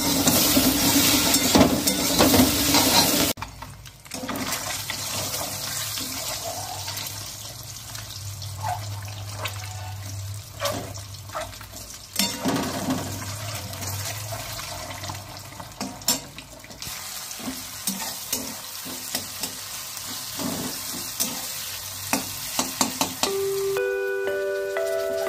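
Potato strips sizzling in hot oil in a steel kadai, stirred with a metal spatula. After about three seconds it drops to quieter frying, with boiled eggs in oil and scattered clicks and scrapes of the spatula on the pan. Near the end a tinkling mallet-percussion tune comes in.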